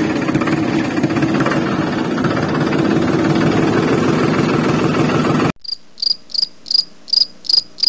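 Small battery-powered DC water pump motor running with a steady buzz; it cuts off abruptly about five and a half seconds in. After that a short, high chirp repeats evenly, about three times a second.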